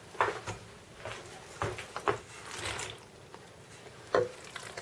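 Cooked macaroni tipped from a dish into a steel pan of thick creamy sauce, with a few short knocks of the dish and a wooden spoon against the pan and a brief soft scraping as the pasta slides in.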